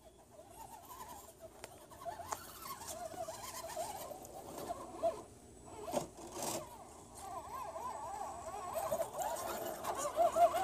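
Small electric motor of a radio-controlled rock-crawler truck whining as it drives over dirt, its pitch rising and falling with the throttle in quick swoops and growing louder as it comes closer, with a few brief knocks in the middle.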